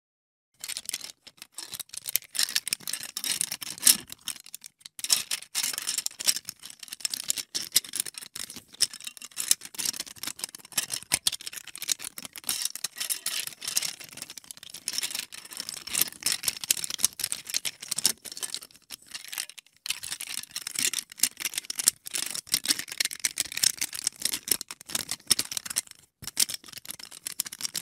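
LEGO bricks clicking and rattling: rapid, irregular plastic clicks with a few short pauses, the longest about two thirds of the way through.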